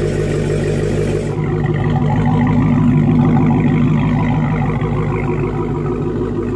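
Dodge Charger Hellcat's supercharged 6.2-litre Hemi V8 idling steadily after a cold start, the exhaust heard up close.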